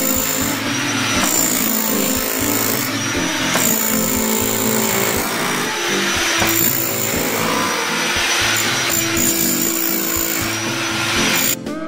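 A handheld power tool runs steadily, digging out a sump pit in the basement floor, over background music. It cuts off just before the end, leaving only the music.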